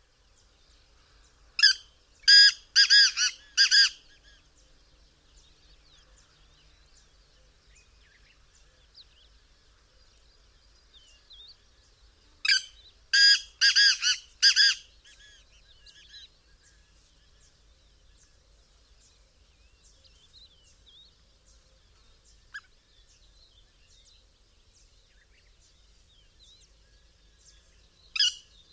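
Black francolin calling: a rapid phrase of about five loud notes about two seconds in, another about eleven seconds later, and a third starting at the very end. Faint chirps of other birds between the phrases.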